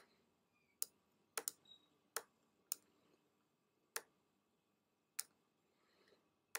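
Computer mouse button clicked about eight times at uneven intervals, each click placing an anchor point while tracing a path with the pen tool; near silence between the clicks.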